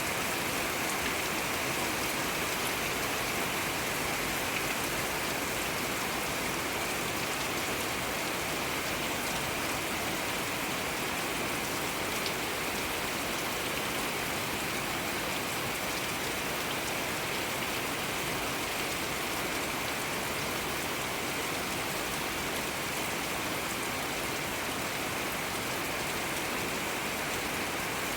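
Steady rain falling: an even, unbroken hiss with scattered faint ticks of individual drops.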